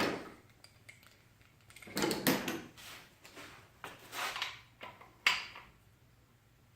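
Ratchet wrench on the crankshaft bolt of an LQ4 6.0 V8, worked in several short strokes to roll the engine over and line up the timing marks, with a sharp click at the start and another, louder one a little past five seconds in.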